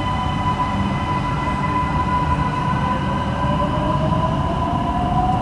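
Metro train at the platform behind the screen doors: a steady low rumble with whining tones, and a motor whine that rises slowly in pitch from about halfway through as the train gathers speed pulling away.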